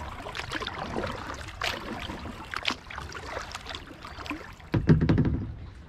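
Kayak paddle strokes: the blades dipping and dripping water in a run of small splashes and clicks. A heavier low thump comes near the end, the loudest sound.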